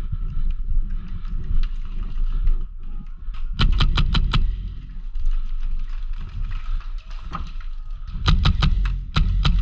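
Airsoft gun firing two quick strings of shots, about six a second, the first near the middle and the second near the end, over a constant low rumble of wind on the microphone.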